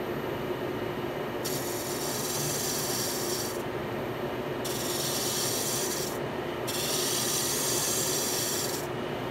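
Wood lathe running with a steady hum while a hand-held turning tool cuts the spinning black walnut vase blank. There are three cutting passes, each a couple of seconds of hiss, the first starting about a second and a half in.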